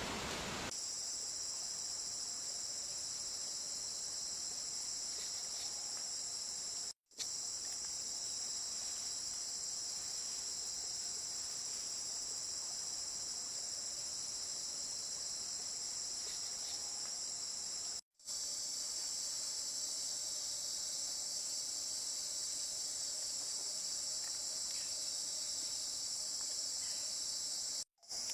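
Steady, high-pitched insect chorus droning without a break in rhythm, cut by three brief total silences, about a quarter of the way in, two-thirds of the way in and near the end.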